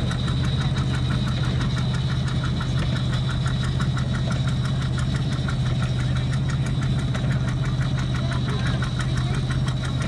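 A farm tractor pulling a small square hay baler, engine running steadily at constant speed, with a fast, even ticking over the engine note and a steady high whine.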